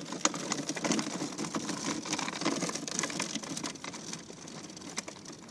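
Electric self-balancing unicycle rolling over rough, gritty asphalt: a rushing tyre noise dotted with many small crackles.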